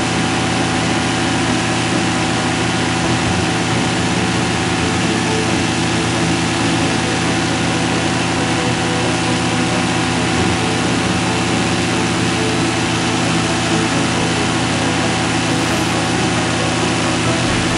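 Tandem paramotor's engine and propeller running steadily in flight, heard close up from the frame: a constant droning hum at unchanging power.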